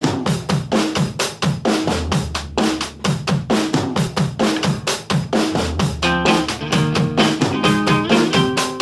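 Music with a fast, steady drum-kit beat of bass drum and snare; pitched instrument notes join the beat about six seconds in.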